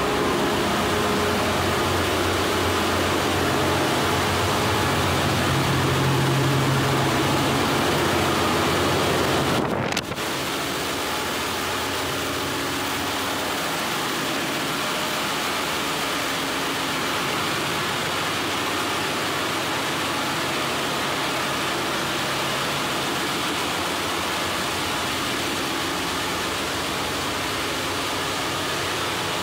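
Steady, loud drone of a ship's engine-room machinery: a dense hiss over a few steady low hums. About ten seconds in it breaks off for an instant, then carries on slightly quieter.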